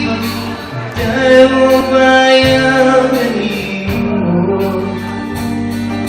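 Live band music, a slow folk-rock song: long held melodic notes over a steady low bass line.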